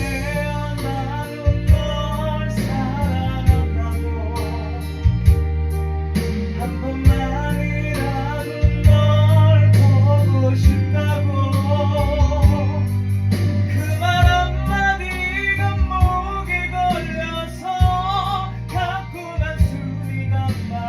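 A Korean ballad sung over a karaoke machine backing track: one voice carries the melody over a steady bass line.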